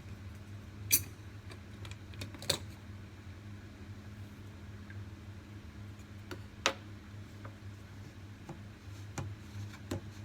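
A few sharp clicks and knocks of things being handled, the three loudest about a second, two and a half seconds and nearly seven seconds in, over a steady low hum.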